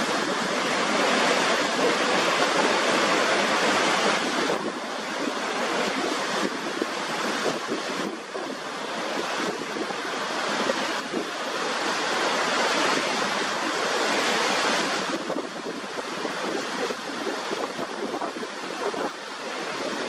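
Rushing water: a steady hiss-like noise without deep rumble, its level swelling and easing every few seconds, with a sudden drop about a quarter of the way in and again about three quarters of the way through.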